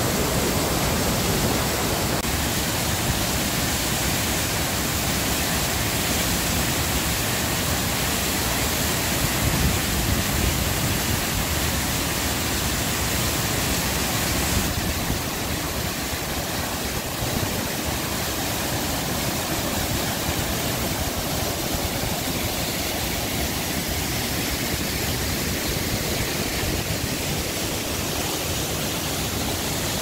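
Steady, loud rush of water from a mountain stream and waterfall in spate after heavy monsoon rain.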